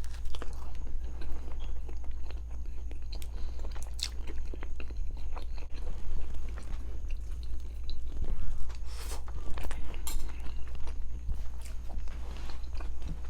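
A person chewing and eating close to the microphone, with many short wet smacks and clicks of the mouth, over a steady low hum.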